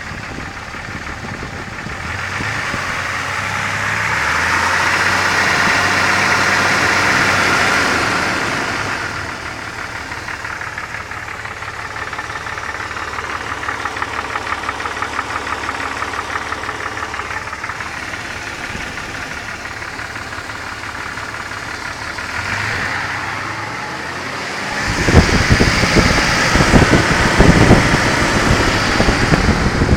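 A vehicle engine running. Its speed rises for a few seconds and drops back to idle, with a fast, even ticking through the middle. It turns to a loud, rough clatter about 25 seconds in. This is the odd noise being recorded, its cause not known.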